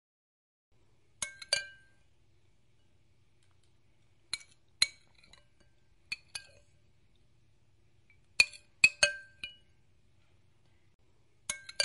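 Metal spoon clinking against a cut-glass bowl while stirring a mixture, in short groups of two or three ringing clinks every few seconds.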